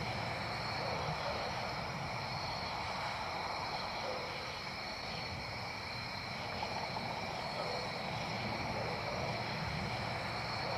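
Steady chorus of crickets, several high trilling bands that hold throughout, over a low even hiss.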